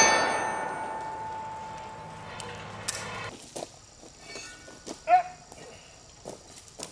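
Struck steel target ringing after a big-bore magnum revolver shot: one long metallic ring that fades over about three seconds. Later come a few sharp knocks and clanks as the steel target and its stand are handled.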